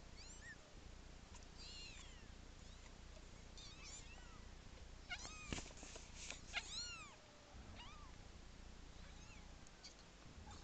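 Young kittens mewing: thin, high-pitched mews in several short bouts, the loudest and busiest cluster about five to seven seconds in.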